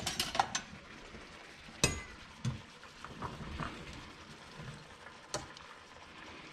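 A spaghetti spoon clinking and knocking against a stainless steel pot as spaghetti is stirred, with a few sharp metallic clicks, loudest about two seconds in and again a little past five seconds.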